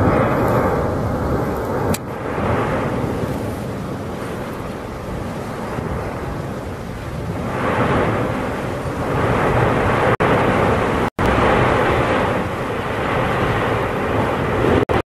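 Volcanic eruption roaring and rumbling, a deep continuous roar that swells and eases every few seconds, with abrupt brief dropouts where the footage is cut.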